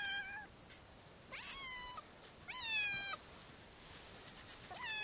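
A stray cat meowing again and again: four drawn-out meows about a second apart.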